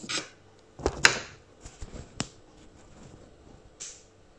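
Handling noise from a hand adjusting a camera set low on a counter: a few light knocks, the sharpest about a second in and another a second later, and a brief rustle near the end.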